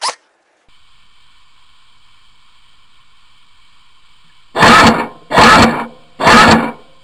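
Systema PTW Type 89 airsoft electric rifle firing three short bursts of rapid full-auto fire, each about two-thirds of a second long, one right after another, starting about four and a half seconds in. A faint steady hum comes before the bursts.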